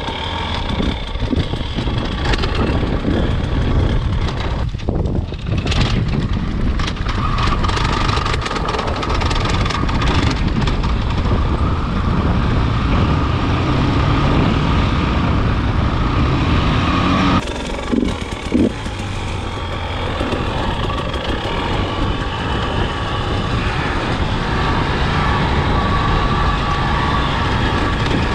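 KTM enduro dirt bike engine running under throttle while riding a rough trail, heard close up with wind noise on the microphone. The sound changes abruptly about two-thirds of the way through.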